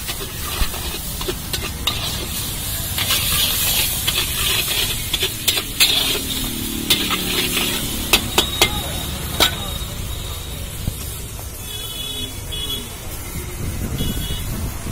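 Flat metal spatula stirring and scraping a potato, peanut and curry-leaf mix around a large iron kadhai while the oil sizzles. There are sharp scrapes and clinks of the spatula on the pan in the middle, over a low traffic rumble.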